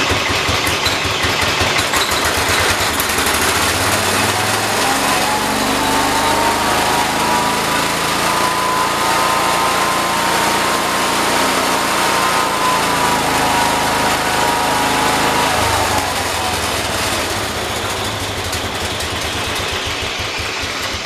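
John Deere 212 garden tractor's single-cylinder Kohler engine running. Its revs climb about four seconds in, hold high, and drop back about sixteen seconds in, and the sound falls away sharply at the very end. The engine is still over-revving while the carburetor throttle is being set.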